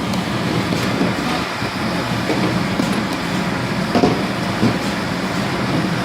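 Automatic shrink-wrap packaging machine running with a steady mechanical rattle and hum, with a couple of sharp clacks about four seconds in.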